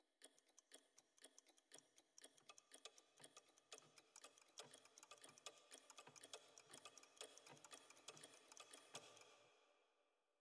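Faint, rapid ticking: about four sharp ticks a second, unevenly spaced, fading away near the end.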